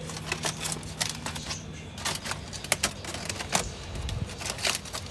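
Metal tongs clicking and scraping against crinkling aluminum foil wrapped around a piece of smoked meat, in irregular sharp clicks and rustles. A low steady hum runs under the first second and a half.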